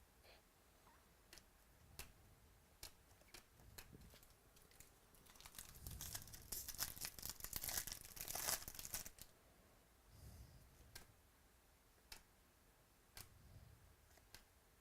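Trading-card pack wrapper being crinkled and torn open for a few seconds about halfway through, between faint clicks and rustles of cards being handled.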